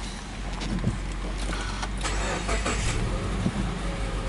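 Subaru Legacy 2.5i's EJ25 flat-four engine being started: the starter cranks and the engine catches about two seconds in, then runs at a steady idle.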